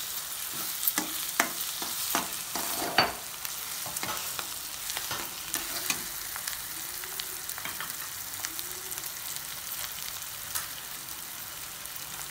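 Onion-and-spice masala with green chillies and curry leaves sizzling in oil in a kadai. A metal spatula scrapes and knocks against the pan for about the first three seconds, then there is a steady sizzle as the masala is left to fry.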